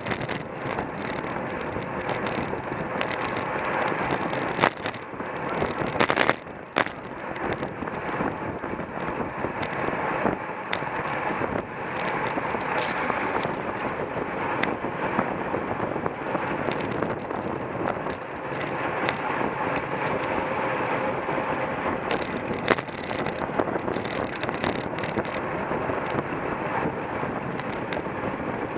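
Steady rush of wind and tyre-on-road noise from a racing bicycle ridden at speed, with a few sharp knocks about five to six seconds in.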